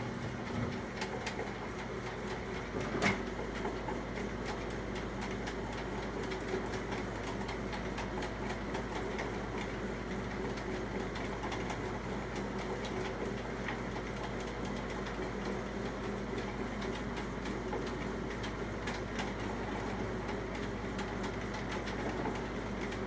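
Electric drain snake running steadily, its motor humming while the spinning cable ticks and rattles as it is fed into a shower drain, with a sharper knock about three seconds in.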